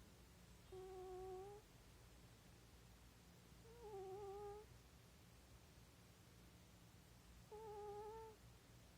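A sleeping older cat snoring, each breath giving a short whistling tone. Three snores come at an even pace, about three and a half seconds apart.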